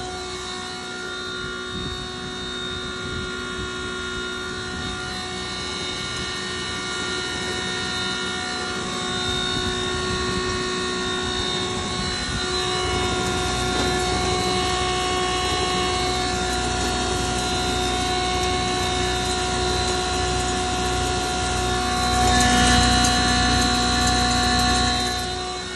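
Double-chamber grinding machine running steadily: a continuous mechanical drone with several steady whining tones over it, growing louder for a few seconds near the end.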